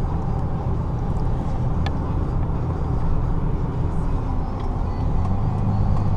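Interior sound of a 2003 Toyota Tacoma pickup cruising: its engine running steadily at low revs under the automatic transmission, mixed with tyre and road noise. The low rumble grows a little louder near the end.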